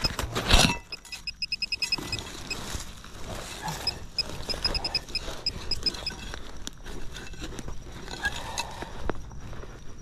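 Handheld metal-detecting pinpointer probed into a dig hole, beeping in quick high-pitched pulses that slow and become intermittent before stopping about five seconds in, signalling metal close by in the soil. Soil, roots and dry grass are scraped and rustled by hand and digging knife, with one loud scrape about half a second in.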